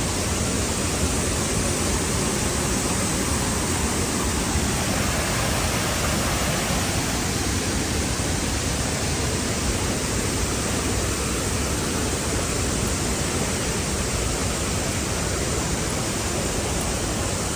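Large waterfall rushing: a steady, dense noise of falling water that does not change.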